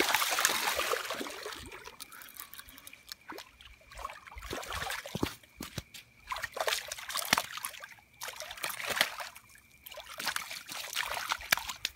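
Hooked carp thrashing at the surface in the shallows, a loud splash at the start, then irregular smaller splashes and trickling water.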